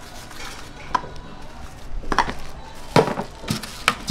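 Gloved hands handling small kimbap rolls on a wooden board: a handful of sharp knocks and taps against the wood, the loudest about three seconds in.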